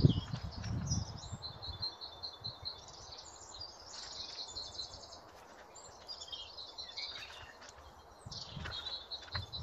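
Small birds chirping and singing, with runs of short high notes repeated quickly several times a second. Near the start and again near the end, low rustling as wood-chip mulch is scooped from a pot and scattered by hand.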